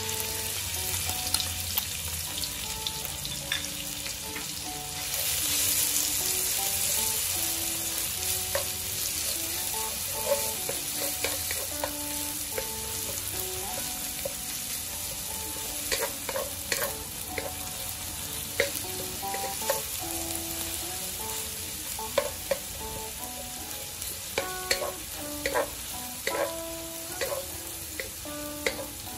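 Lemongrass and chili paste sizzling in hot oil in a non-stick wok, stirred with a wooden spatula that clicks and scrapes against the pan. The sizzle grows louder about five seconds in, and the spatula knocks come more often in the second half.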